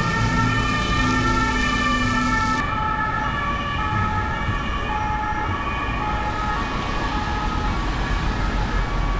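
Two-tone police siren wailing, its pitch stepping back and forth between notes, over the rumble of city traffic.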